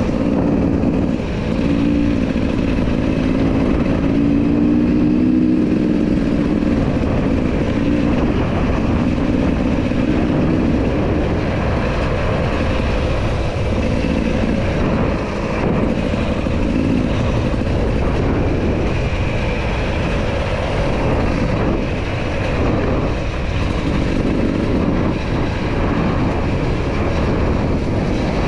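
Enduro motorcycle engine running while riding, its note shifting up and down with the throttle over a heavy steady rumble of noise.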